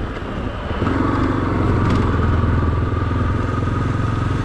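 Yamaha XTZ 250's single-cylinder four-stroke engine running under way, heard from the rider's position. It gets louder about a second in, with a faint steady whine over the engine note.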